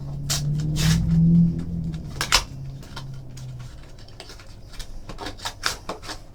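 Scattered clicks, knocks and rustles of a trading-card hobby box and its card packaging being handled and opened, over a low steady hum.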